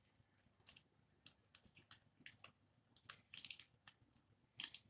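Milk-and-sugar syrup simmering in a metal kadhai on a low flame, giving faint, irregular little pops and crackles as the bubbles burst.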